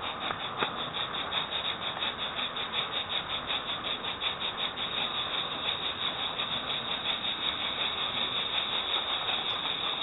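Model train rolling along the track, heard close up through a small webcam's microphone riding in a wagon: a steady running rumble with a fast, even clicking from the wheels and mechanism.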